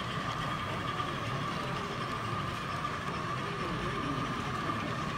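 OO gauge model train running past on its track: a steady hum with a constant mid-pitched whine.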